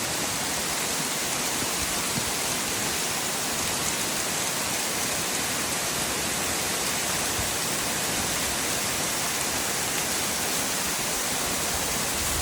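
Rushing water running steadily and evenly, a constant hiss with no breaks.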